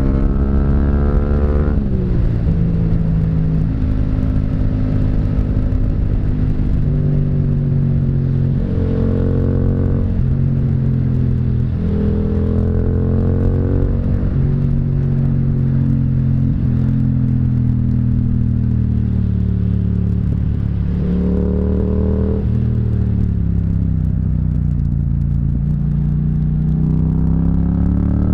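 Yamaha MT-07's 689 cc parallel-twin engine running under way. Its pitch falls near the start, holds through several level stretches with small steps, rises briefly about three-quarters through, then climbs again at the end.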